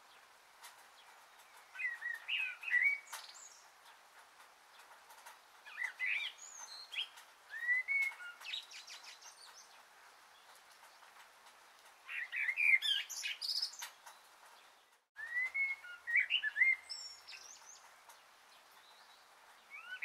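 Songbirds chirping and twittering in short, quick phrases every few seconds, with a longer pause in the middle, over a faint steady hiss.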